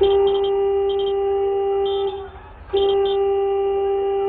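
A vehicle horn sounding in two long steady blasts of about two seconds each, with short high beeps coming and going over them.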